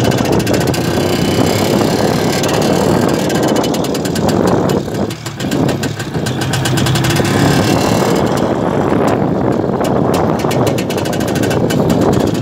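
Motorcycle engine running as the bike rides along a dirt track, easing off briefly about five seconds in before picking up again.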